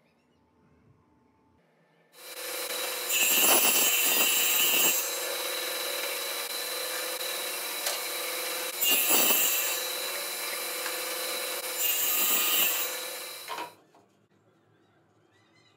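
Table-mounted circular saw running and cutting 12 mm plywood. It starts about two seconds in and runs at a steady pitch, gets louder three times as the blade goes through the board, then stops suddenly near the end.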